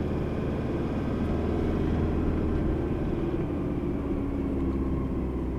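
Four-wheel-drive vehicle driving along a track, its engine and tyres making a steady drone.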